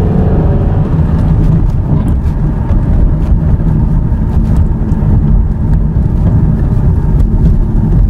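2003 Ford Thunderbird's 3.9-litre V8 pulling the car under hard acceleration, heard from inside the cabin along with road noise. Scan data shows the engine running lean at high load, with fuel trims climbing toward 30%.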